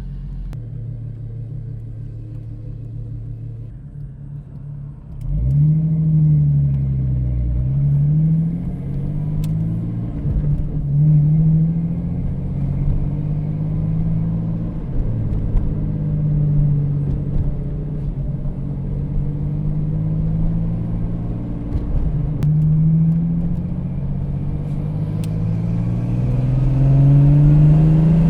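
1989 Jeep Cherokee XJ's 4.0L inline-six running through a Flowmaster 40 Series Delta Flow muffler: it idles steadily, then about five seconds in it gets louder and drives off, the exhaust note rising and falling again and again with the throttle.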